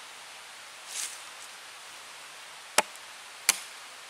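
Hatchet blade being struck down into the end grain of a short upright log to split it: two sharp chopping knocks, the second under a second after the first, with a soft brushing sound about a second in.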